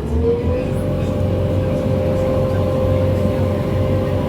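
Vehicle engine running: its pitch rises briefly at the start, then it holds a steady hum.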